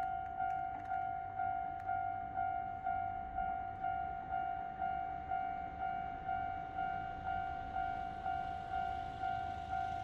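Japanese level-crossing warning bell ringing its repeated single-pitch 'kan-kan' tone, about two strikes a second, steady throughout: the crossing is closed for an approaching train.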